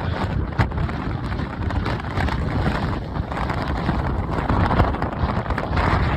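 Strong gusty wind buffeting the microphone: a low rumble with rushing noise that swells and eases with the gusts.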